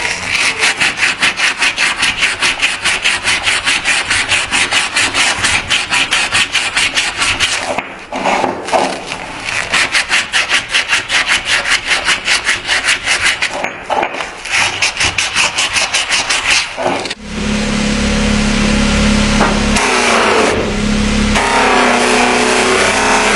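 Fast back-and-forth abrasive strokes on a steel knife blade, about four a second, pausing briefly twice. About 17 seconds in, the strokes stop and a steady motor hum takes over.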